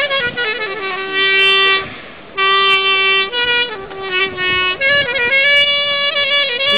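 A single wind instrument plays a melody in held notes that step up and down, with a brief break about two seconds in.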